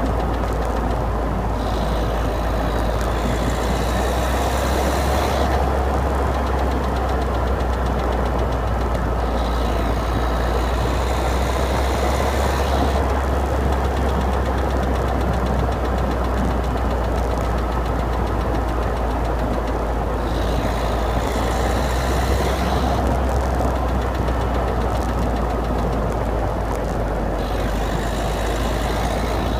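Citroën DS3 110 HDi's 1.6-litre four-cylinder diesel engine running steadily, with the clicking noise the owner is trying to capture.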